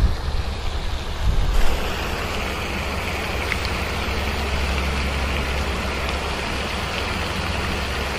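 Steady rushing hiss of a pond aerator fountain's spray, with wind rumbling on the microphone. A few soft handling bumps in the first second or so.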